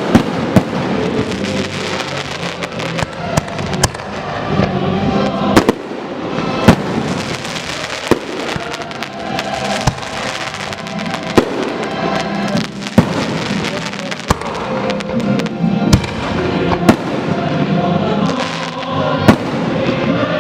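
Aerial fireworks bursting in sharp bangs, roughly one every second or so, some with crackle, over music playing.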